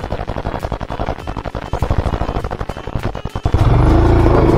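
Royal Enfield Himalayan's single-cylinder engine running at low revs with rapid, distinct firing pulses, then louder and steadier about three and a half seconds in.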